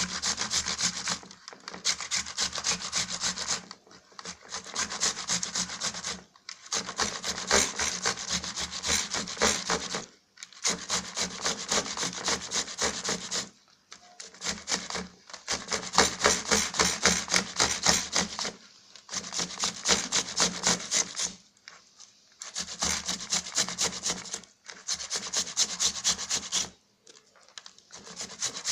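Tomato being grated on the finest holes of a kitchen grater, turned round and round: a rapid scraping rasp of many strokes a second, in runs of a few seconds with short breaks between.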